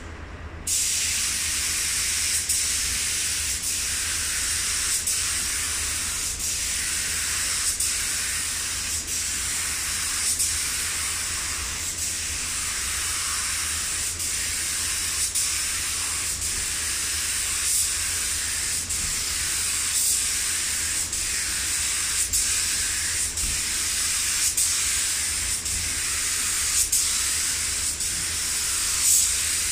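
Compressed-air paint spray gun hissing steadily as it sprays primer onto bare aluminium; the hiss starts abruptly about a second in when the trigger is pulled.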